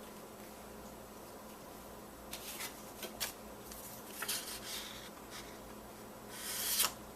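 Paper and cardstock being handled on a tabletop: a few short rustles and scrapes, then a longer, louder rustle near the end.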